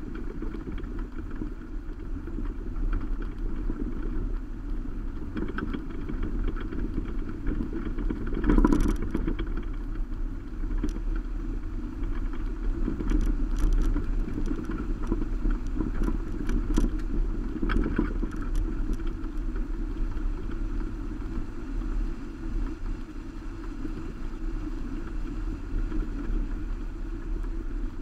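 Subaru Baja driving along a gravel road, heard from its roof rack: a steady rumble of tyres on gravel and wind, with scattered sharp clicks and knocks. The loudest knock comes about eight seconds in, and more follow between about 13 and 18 seconds.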